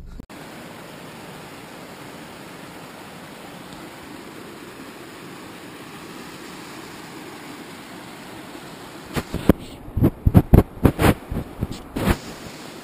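Small forest creek rushing over rocks, a steady wash of water noise. About nine seconds in, a quick run of a dozen or so loud thumps and knocks breaks over it.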